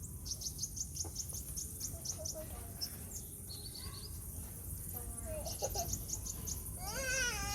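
Small birds chirping: quick runs of short, high chirps and a brief trill, with a longer warbling call of wavering pitch near the end.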